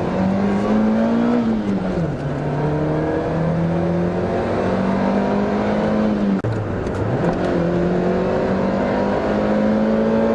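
Toyota Starlet's engine pulling through the gears. The revs climb, drop at a gear change about two seconds in and again about six seconds in, then climb again.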